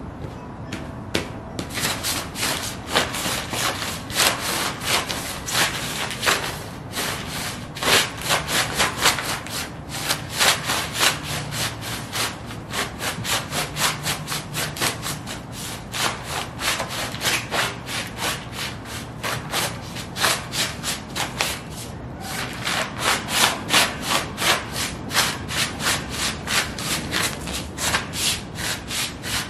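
Sheepskin UGG boots stomping quickly on loose magazine pages over concrete: the paper crinkles and crackles with each step, in a fast, steady run. It starts about two seconds in and pauses briefly near twenty-two seconds.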